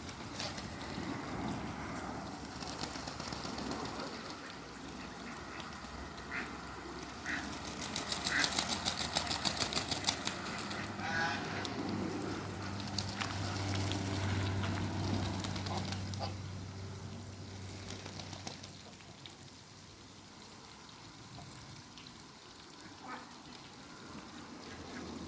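Ducks giving short calls a few times, with a quick rattling burst in the middle.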